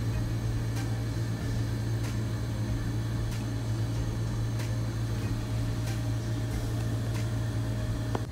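A steady low hum, with a few faint scattered ticks.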